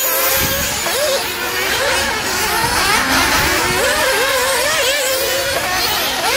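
Several nitro RC off-road race cars running together, their small two-stroke glow engines revving up and down in overlapping high-pitched whines.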